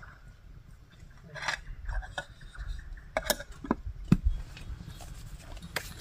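Spoon clinking and scraping against a bowl of kheer while eating: a handful of separate clicks and knocks, the sharpest about four seconds in.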